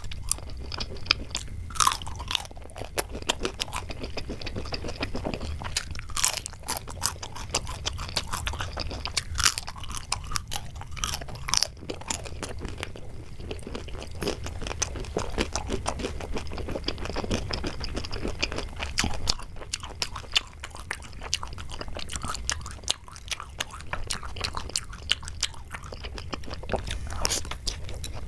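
Close-miked chewing and crunching of crisp, syrupy jalebi, with frequent sharp crackles and clicks over a steady low hum.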